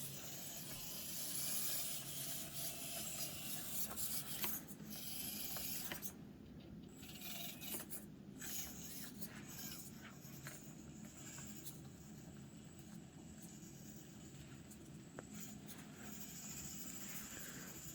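Faint rubbing and scraping with a few small clicks: a 1/24-scale Axial SCX24 Deadbolt micro crawler working its tyres over the obstacles of its course.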